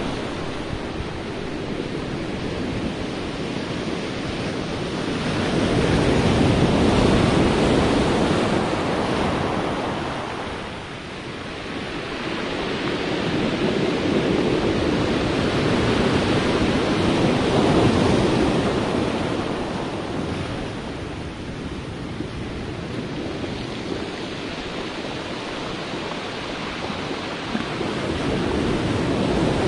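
Sea waves washing onto a shore: a steady rush of surf that swells and ebbs slowly, with a few louder swells and a lull near the middle, and some wind noise.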